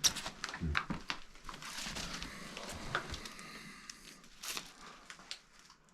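Old record albums being flipped through by hand: cardboard jackets sliding and rustling against each other, with a few light knocks.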